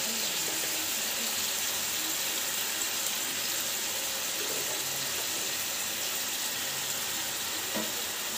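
Raw chicken pieces sizzling in hot oil in a nonstick pan, a steady hiss.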